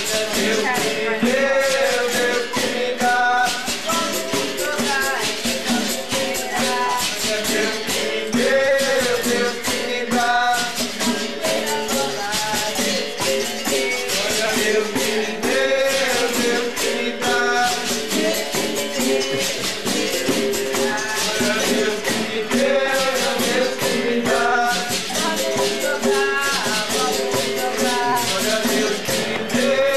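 Capoeira bateria playing: berimbaus with caxixi shakers and pandeiros keep a steady, rapid rhythm, with voices singing over it.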